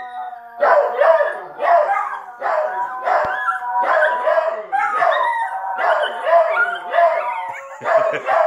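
Several dogs howling together, a puggle, a rat terrier and a dachshund-pug mix, their pitched howls overlapping and swelling again and again, about once a second.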